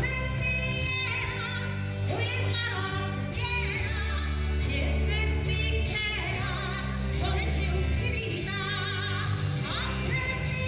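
Live pop band music with a strong, steady bass line and a woman singing with vibrato over it.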